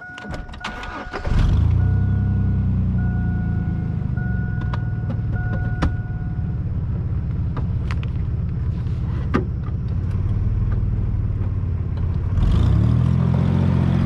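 Chevrolet S-10 Blazer's 4.3-litre V6 is cranked and catches about a second in, then idles steadily. A two-tone dashboard warning chime dings repeatedly over it for the first several seconds, then stops. Near the end the engine's pitch rises as it revs up.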